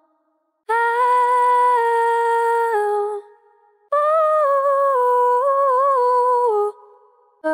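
Two wordless female vocal ad-lib samples, each a single held sung note lasting about two and a half seconds with a short gap between. The first holds steady and steps down slightly near its end; the second wavers in pitch and then drops at its close. Both are wet, effects-processed versions.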